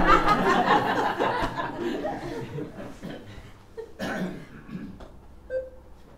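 A small audience laughing and chuckling, loudest at the start and dying away over a couple of seconds, with a brief second round of laughter about four seconds in. Near the end, a short electronic beep.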